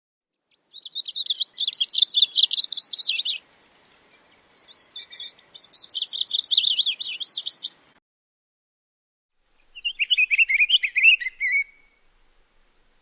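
A songbird singing three rapid, jumbled warbling phrases, each about two to three seconds long with pauses between them; the last phrase is lower-pitched and ends in a short trill.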